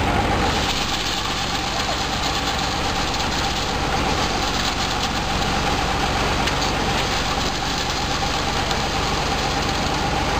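Guru Hindustan Missile Model paddy thresher running steadily under load, threshing paddy, with a dense, even mechanical churn and a steady hum held at one pitch.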